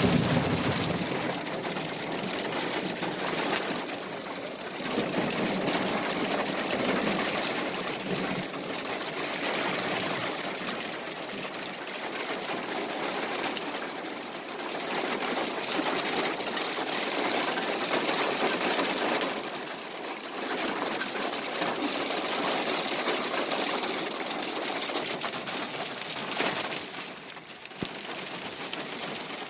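Heavy rain pouring down in a steady hiss that swells and eases every few seconds.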